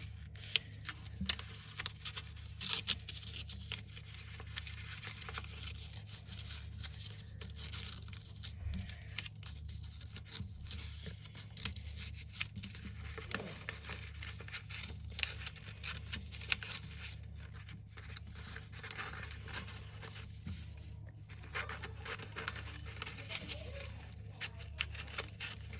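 Painted paper strips rustling and scraping as they are woven over and under through the slits of a folded paper loom, with scattered small crinkles and taps from handling the paper. A steady low hum runs underneath.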